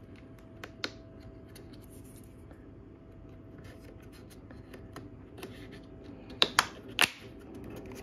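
Small plastic covers being pressed and snapped onto the handle brackets of a 12-volt chest fridge: light clicks about a second in, then three sharp snaps close together near the end. Under it the fridge's compressor hums steadily while it runs on maximum cooling.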